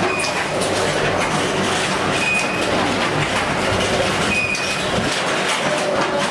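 Automatic dona pattal (paper bowl) making machine running, a steady mechanical clatter with a short high squeak about every two seconds.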